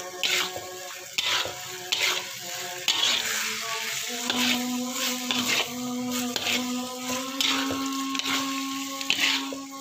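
Spatula scraping and stirring long beans and clam meat in a wok, in rhythmic strokes about once a second, over a light sizzle of frying. A steady low tone runs underneath from about four seconds in.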